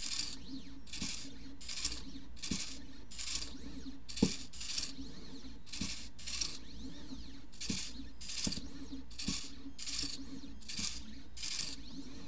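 midTbot pen plotter drawing: its stepper-motor drive buzzes in short bursts, a little more than one a second, as the pen head makes short strokes. Many of the moves come with a light click.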